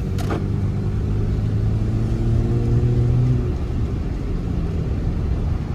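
Dodge Charger GT's V6 engine running while driving, swelling with a slight rise in pitch about two seconds in under gentle acceleration, then easing off.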